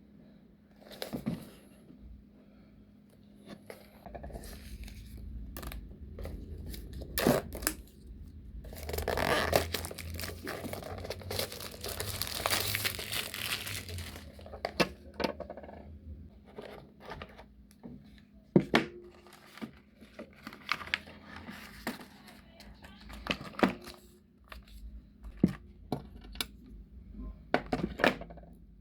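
Unboxing handling: sharp clicks and taps of packaging and parts being handled. From about nine to fourteen seconds in, packaging is torn and crinkled.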